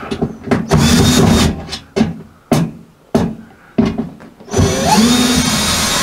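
Cordless drill running in two bursts, a short one about half a second in and a longer one from about four and a half seconds on, with a few sharp clicks in between, as it backs out the screws holding an RV furnace down.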